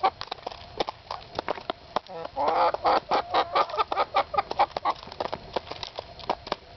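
Hens pecking black sunflower seeds from a bowl: quick, irregular pecking clicks throughout. A hen clucks for about a second, some two and a half seconds in.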